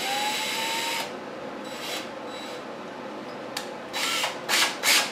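Cordless drill/driver spinning up for about a second with a rising whine, then several short bursts near the end.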